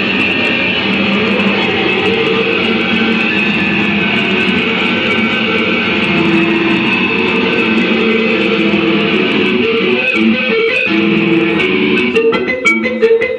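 Noise music made from cell-phone ringtones fed through effects pedals: a dense, continuous wash of layered tones with slowly shifting notes. Near the end it breaks up into short, separate notes.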